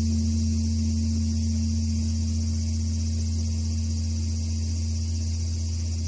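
Korean Buddhist temple great bell (beomjong), struck with a log, humming on after the stroke and slowly fading: a deep low hum with a fainter, higher tone above it.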